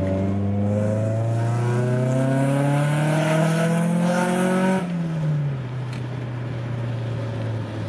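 Nissan Gazelle S12's SR20DE four-cylinder engine accelerating hard through a large cannon-style exhaust, heard from inside the cabin. The revs climb steadily for about five seconds, then the throttle closes and they fall away and settle.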